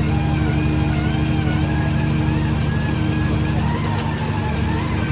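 Heavy road-paving machinery's diesel engines running steadily, a low, even drone from the asphalt paver and rollers.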